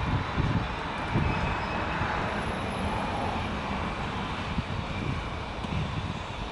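Outdoor background noise: a steady hum like distant traffic, with irregular low gusts of wind buffeting the microphone.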